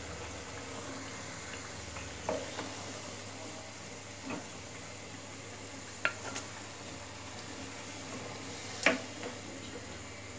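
Puli pitha sizzling steadily in hot frying oil in a nonstick pan. Several short knocks of a wooden spatula against the pan as the fried pitha are lifted out, the loudest near the end.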